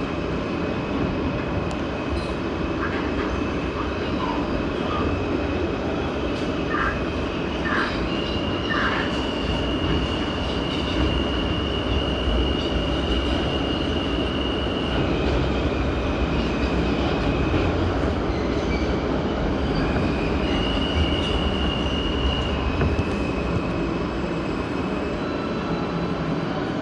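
New York City subway train running on the rails, heard from inside the car as a steady rumble and rattle. The wheels give long high-pitched squeals about eight seconds in and again around twenty seconds in.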